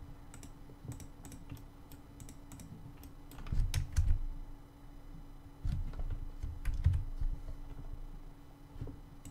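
Scattered clicks of a computer keyboard and mouse during desk work, with a few dull low thumps a few seconds in and again past the middle, over a faint steady hum.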